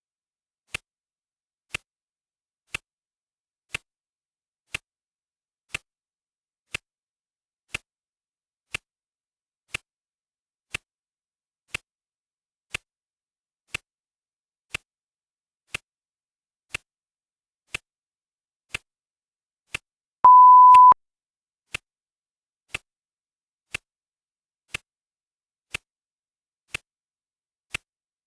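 Clock ticking once a second, with a single steady, high beep about two-thirds of the way through, a minute-mark signal on a countdown timer. The beep is the loudest sound.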